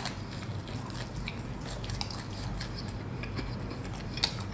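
A person biting into a crispy fried chicken wing and chewing it, with scattered small crunches of the breaded skin; a sharper crunch comes about four seconds in.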